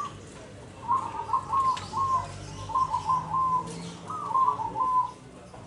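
Zebra dove (perkutut) cooing: three phrases of quick, clipped coos, each of three or four notes, about a second apart.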